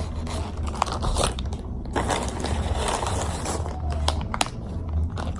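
Paper takeout bag and food wrappers rustling and crinkling as they are handled, with scattered crisp clicks, over a steady low hum.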